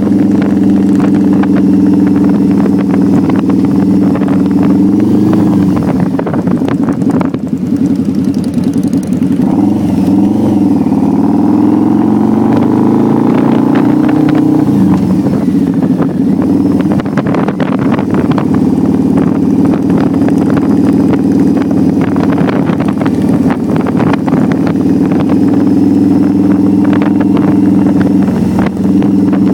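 Cruiser motorcycle engine running at a steady road speed, heard from the rider's seat. Between about six and fifteen seconds in, its pitch drops and wavers as the engine slows, then climbs back and holds steady to the end.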